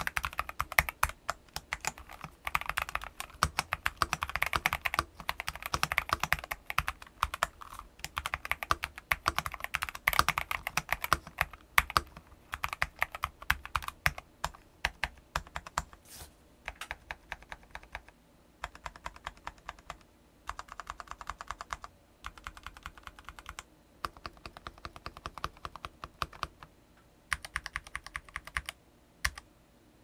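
Mechanical keyboard, an Epomaker Eclair (MMD75) fitted with KBDiy Holy Tom V2 switches and Hammerhead Dark Cherry-profile PBT keycaps, being typed on: fast continuous typing at first, then from about halfway short runs of key presses with pauses between them.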